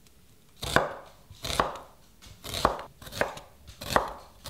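A knife chopping on a cutting board: about six sharp strokes, unevenly spaced roughly a second apart.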